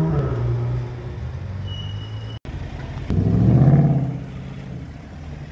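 A car engine running with a steady, slightly falling note, then after a sudden cut a Ford Mustang's engine revving up as it pulls away from close by. Its note swells and bends up and back down for about a second before fading.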